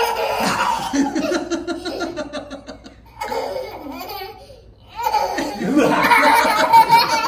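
Toddler laughing in repeated bursts, with brief pauses about three seconds in and again near five seconds.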